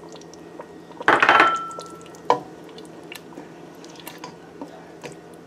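A glass bowl clatters against a steel cooking pot about a second in and rings briefly, followed by one sharp knock a little later. After that, a spoon stirs thick tomato stew with faint scrapes and ticks.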